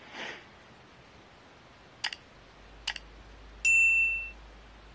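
Subscribe-button animation sound effects: a short whoosh, then two mouse clicks a little under a second apart, then a bright bell ding that rings for about half a second and is the loudest sound.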